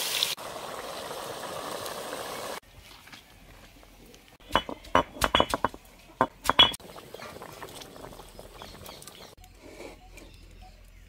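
Stone roller knocking and grinding on a flat stone grinding slab (ammi kal): a quick run of about a dozen sharp clacks over two seconds. Before it, a steady hiss cuts off about two and a half seconds in.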